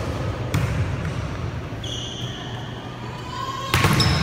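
Volleyball struck hard, once about half a second in and again, louder, near the end as a spike at the net. Short high-pitched squeaks between the hits, typical of sneakers on a gym floor.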